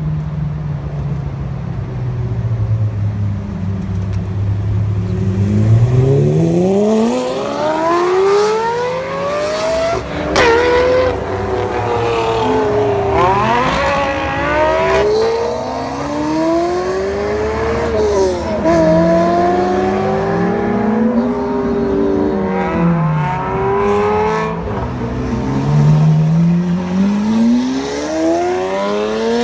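Supercar engines pulling away hard, one after another. A low engine note for the first few seconds, then the pitch repeatedly climbs and drops back at each gear change as the cars accelerate.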